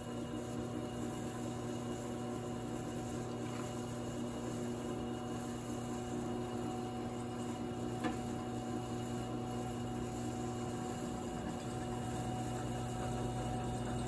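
Electric drill motor running steadily with a low, even hum while holes are drilled through into a steel sprocket.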